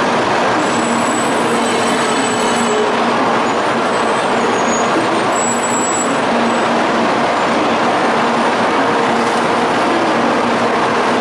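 N700 series Shinkansen train pulling in along the platform and slowing toward a stop: a steady rush of train noise, with a faint high whine in the first few seconds.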